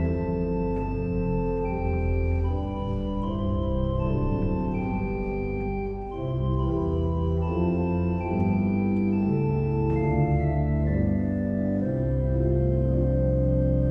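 Pipe organ playing slow sustained chords over a deep held bass, the chords changing every second or two.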